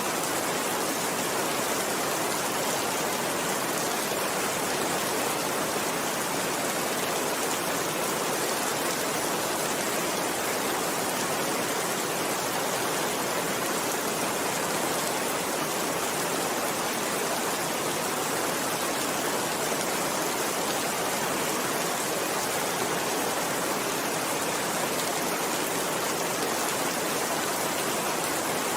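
Steady rain falling, an even unbroken hiss with no change in strength.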